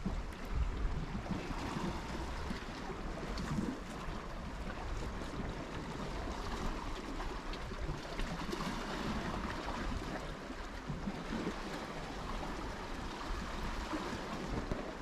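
Steady wash of sea water, with a low rumble of wind.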